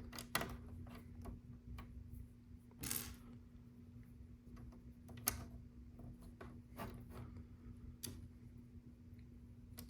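Small plastic LEGO pieces clicking and tapping as they are handled and pressed onto the build: a handful of sharp clicks a second or more apart, with a brief rustle of pieces about three seconds in, over a faint steady hum.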